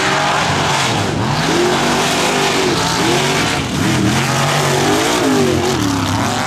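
Mega truck's engine revving hard in a mud race, its pitch rising and falling again and again as the throttle is worked, over a steady rushing noise.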